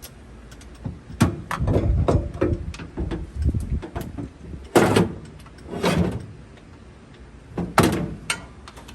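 Knocks, clanks and scrapes of hands and a tool working a battery terminal clamp tight on a battery post. Irregular sharp knocks throughout, with a few longer scraping sounds around the middle and near the end.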